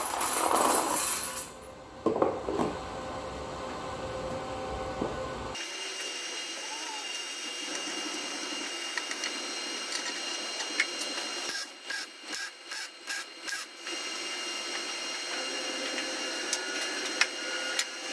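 TIG welding arc on a bolt: a steady hiss with a thin hum, which breaks off and restarts five or six times in quick succession about two-thirds of the way through. A louder rough noise fills the first second and a half.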